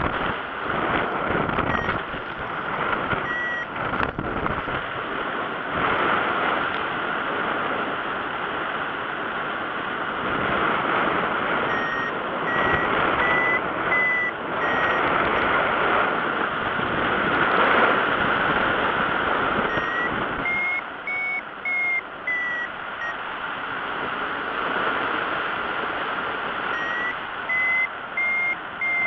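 Airflow rushing over the microphone in flight, with a paragliding variometer sounding groups of quick beeps that step up in pitch, its signal that the glider is climbing in lift.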